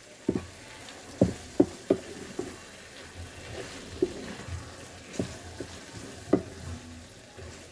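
Wooden spatula stirring brain pieces through masala in a non-stick frying pan, with irregular knocks of the spatula against the pan over a faint sizzle of the frying.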